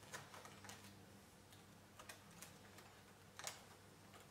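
Faint, scattered small clicks and scratches from hands working on a foam model-plane wing with a hobby knife and nylon hinges, the sharpest about three and a half seconds in.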